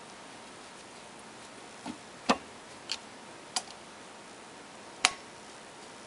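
Sharp metallic clicks as a T-handle Allen wrench is fitted into and turned in the socket-head screws of an electric motor's end flange, tightening them a little at a time. About five clicks come at uneven spacing, the loudest about two seconds in and about five seconds in.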